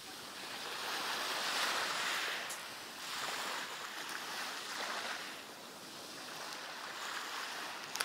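Small sea waves washing in and out on a pebble beach, the surf swelling and easing in several surges.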